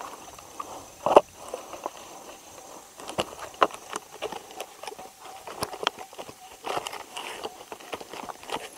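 Split log sections knocking and scraping together as they are lifted by hand and fitted back into a round. There is one sharp wooden knock about a second in, followed by many lighter knocks and rubbing of bark.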